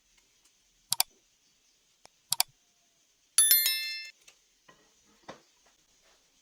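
Two sharp clicks about a second apart, then a short bright chime of several ringing tones that dies away in under a second, followed by two faint knocks.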